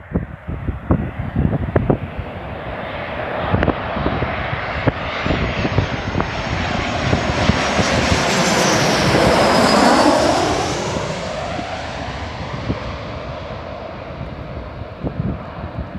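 Boeing 737-800 jet airliner's CFM56 engines passing low overhead on landing approach with its gear down. The jet noise and whine grow to a peak about ten seconds in, the pitch sliding down as the aircraft passes, then fade as it heads away toward the runway.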